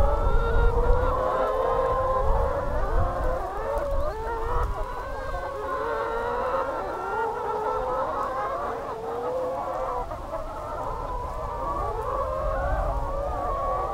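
A flock of free-range brown laying hens calling over one another, a steady chorus of many overlapping drawn-out calls and clucks.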